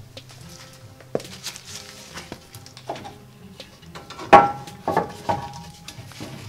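Aluminium intercooler knocking and scraping against the car's front-end metal as it is slid into place: a few sharp clunks, the loudest about four seconds in. Soft background music underneath.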